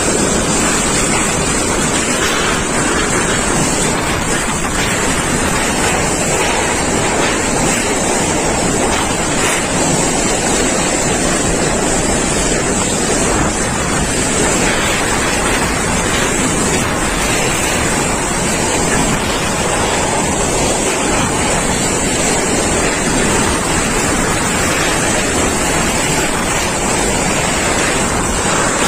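Typhoon wind blowing hard and steadily in a constant rushing noise, buffeting the microphone with low rumbling gusts.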